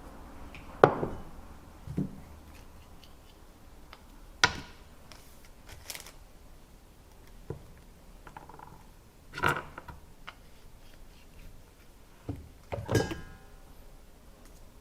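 Scattered clicks and clacks from parts of an airsoft gas-blowback pistol being handled and fitted, about eight knocks spaced a second or more apart. The sharpest comes about a second in, and one near the end rings briefly.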